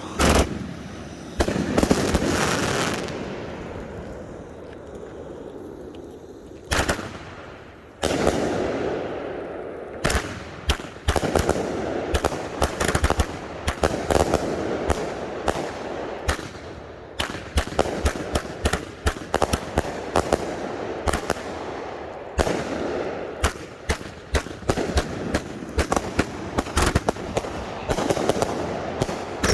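Consumer firework cakes firing: sharp bangs of shots bursting with hissing and crackle between them, a few spaced reports at first, then a rapid barrage of many bangs from about ten seconds in.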